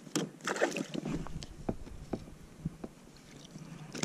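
Irregular clicks and knocks of a fishing rod and reel being handled in a plastic kayak, with a short noisy rush, like water or gear moving, from about a quarter second to a second in.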